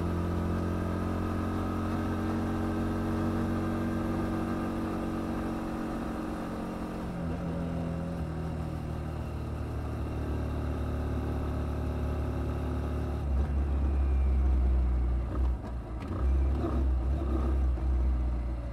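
Kymco Quannon 125 motorcycle's 125 cc engine running at steady road speed, heard from the rider's helmet. Its tone shifts about a third of the way in, and from about two-thirds in a louder, uneven low rumble takes over.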